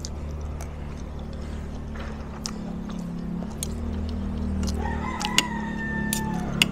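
A rooster crows once, a held call that falls off at the end, about five seconds in. Under it, a spoon and fork clink against a plate, and a steady low hum runs throughout.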